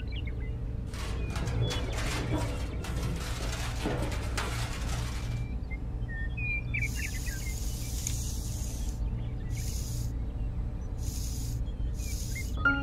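Dry sand crunching and scratching as a plastic pond shell is worked into it, then a small trowel scraping across sand in four strokes, the first long and the rest short. A few faint bird chirps and a steady low hum sit underneath.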